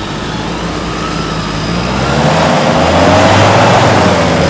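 Modified off-road Land Rover's engine working hard under load on a steep rocky climb, revving up and growing louder about halfway through, then easing slightly.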